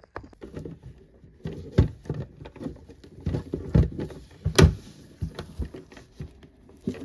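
Hands struggling to open a Pokémon card tin: irregular knocks, taps and rustling as the tin and its wrapping are handled, with louder knocks near the middle.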